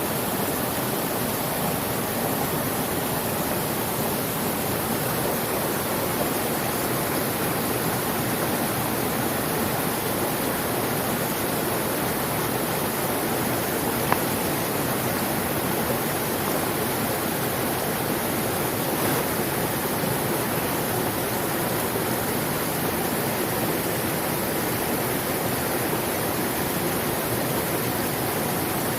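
Mountain stream rushing over rocks, a steady, even sound of moving water. There is one brief click about halfway through.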